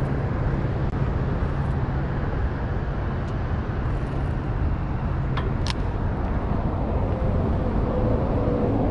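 Steady road traffic noise from a highway and overpass, with a couple of sharp ticks about five and a half seconds in.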